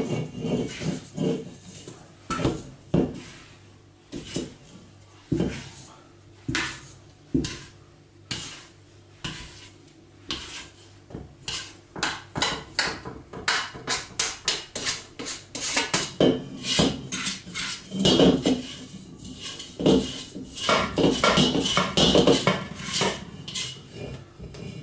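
Stainless steel stand-mixer bowl knocking and scraping as bread dough is worked out of it by hand: scattered knocks at first, then quick clattering from about halfway.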